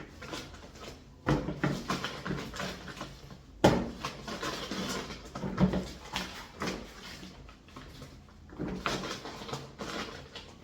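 Groceries being handled: irregular rustling and knocks as produce is taken out and set down, with one sharper knock a few seconds in.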